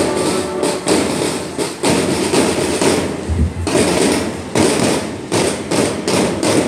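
School marching band drums beating the march in a run of loud, sharp strikes.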